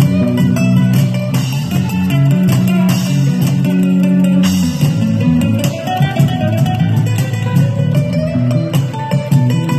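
A small live band playing: acoustic guitar picked and strummed over a bass line, with bongo hits.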